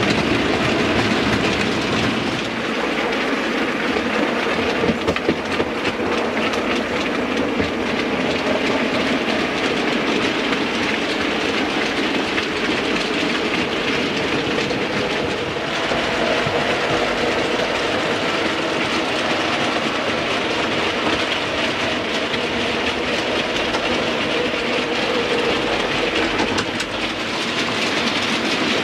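OO gauge model trains running on the layout: a continuous rattle and clicking of small wheels over the track, with a steady hum underneath.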